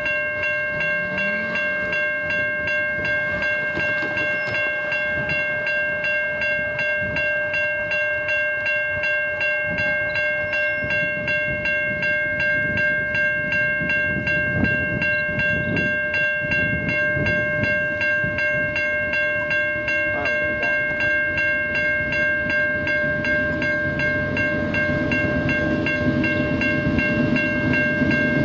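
Railroad grade-crossing warning bell ringing in a steady, fast, even rhythm as the signals activate for an oncoming train. Near the end the approaching BNSF diesel freight locomotive grows audible as a rising low rumble beneath the bell.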